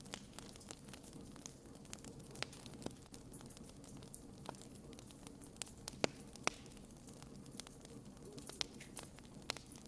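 Wood bonfire crackling: scattered sharp snaps and pops of burning logs, the two loudest a little after six seconds in, over a faint low rumble.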